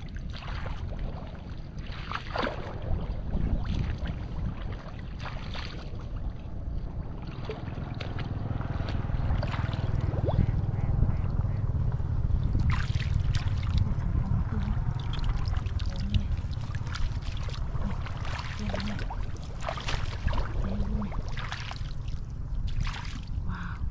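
Shallow floodwater sloshing and splashing as someone wades and reaches through mud and weeds, with many short splashes and knocks, over a steady low wind rumble on the microphone.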